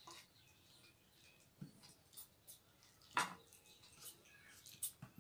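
Quiet eating sounds: short, soft smacks and clicks of chewing and of fingers mixing rice and thin chicken curry on steel plates, the sharpest about three seconds in.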